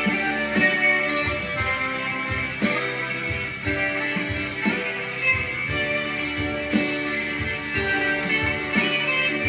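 Guitar-led rock music playing from a vinyl record on a turntable, electric guitar over a steady beat.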